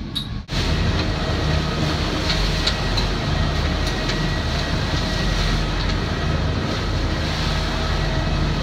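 Lagoon 450 sailing catamaran under way at speed: a steady low rumble with water rushing in its churning wake. It comes in suddenly about half a second in.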